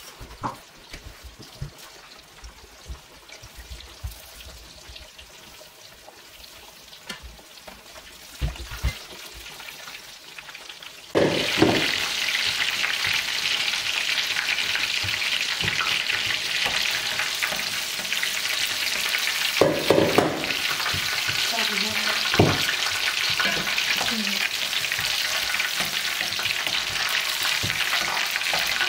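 Breaded chicken schnitzel deep-frying in hot oil in a pot. It starts as a soft bubbling hiss, and a loud, steady sizzle sets in suddenly about eleven seconds in. A few short knocks of metal tongs against the pot come later.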